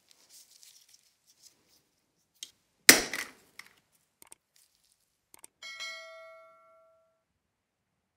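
Nail tools and plastic bead cases handled on a tabletop: a sharp knock about three seconds in, a few small clicks, then a metallic ping that rings for about a second, as of a metal tool clinking against the other tools.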